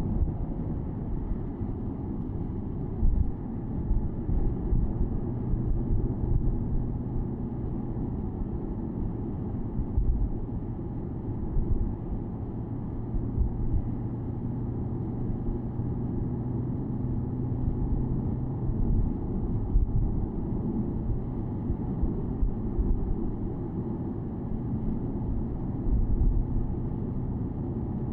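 Porsche Boxster S (987.2) flat-six engine cruising at a steady, low pitch, heard from the open-top cabin, under a rumble of road and wind with occasional low thumps.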